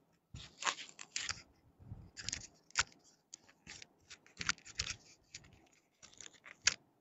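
Irregular crisp rustling, crackling and clicking of things being handled, several short bursts a second, some with a dull low thud.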